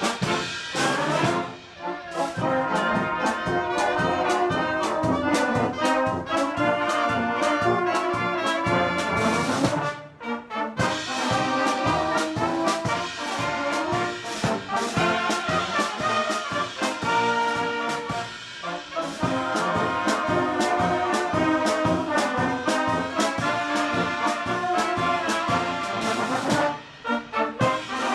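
A Bohemian-style brass band playing live: trombones and trumpets carry the melody over a steady beat. There are short breaks between phrases about ten seconds in and near the end.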